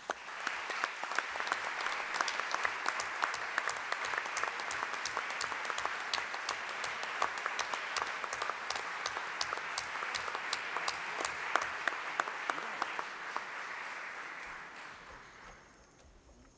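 Large seated audience applauding steadily, the clapping tailing off and dying away over the last couple of seconds.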